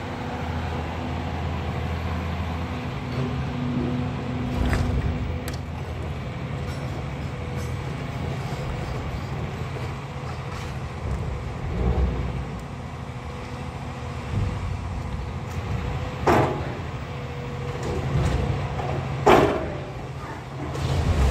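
Heavy diesel demolition machinery running steadily, with several short crashes and scrapes of debris, the loudest two near the end.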